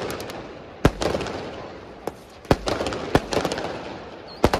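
Fireworks going off: sharp bangs about every second, the loudest a double bang near the end, each followed by a crackling tail that dies away.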